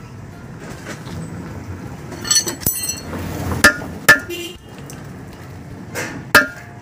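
Sharp metallic clinks and taps from small metal parts and a steel cable being handled against a rusty metal block: a quick run of ringing clinks a little past two seconds in, then single sharp clicks around three and a half, four and six seconds.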